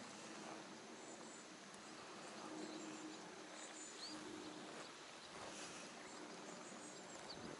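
Faint lakeside ambience: a few high, short bird chirps and quick rising calls over a soft steady hum and hiss.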